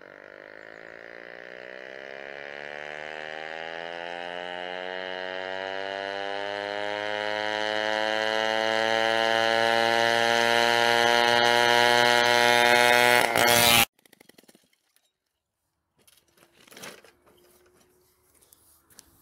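Peugeot 103 Vogue moped's small two-stroke single-cylinder engine running with no exhaust pipe, a raw buzzing note. It grows steadily louder and higher in pitch for about fourteen seconds as the moped comes closer, then cuts off suddenly. A few faint knocks follow near the end.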